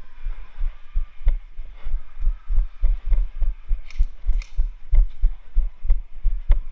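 Rhythmic deep thumps, about three a second, from a player's footsteps jarring a body-worn camera while moving across the airsoft field. Two sharp snaps about four seconds in, typical of airsoft pistol shots.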